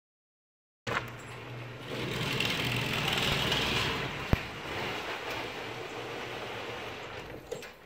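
Garage door opener raising a one-piece tilt-up garage door: a steady mechanical running sound with a low hum that starts about a second in, has a sharp click about halfway through, and winds down and stops shortly before the end.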